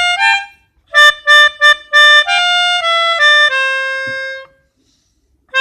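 Telolet musical horn playing a tune: a run of short separate notes, then a few longer held notes stepping down in pitch, stopping about four and a half seconds in and starting again right at the end.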